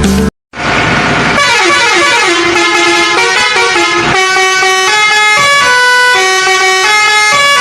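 A vehicle horn sounding a tune of held notes that step up and down, like a musical horn, after a short hiss about half a second in.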